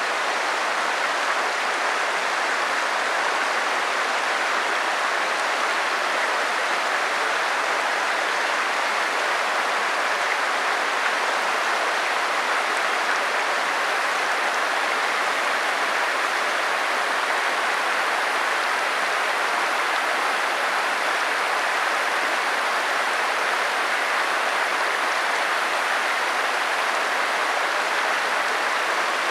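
Steady rush of a flowing stream, an even water noise that holds at the same level throughout.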